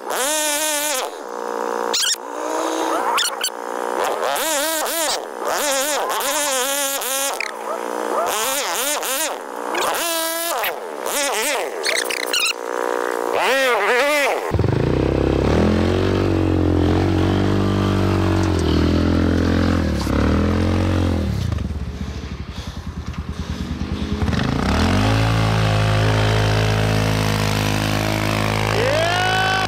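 ATV engine revved hard again and again, its pitch swinging up and down quickly as the quad works to back out of deep snow. About halfway through the sound cuts to a heavier, lower engine running under load, which rises and falls in pitch a few times near the end.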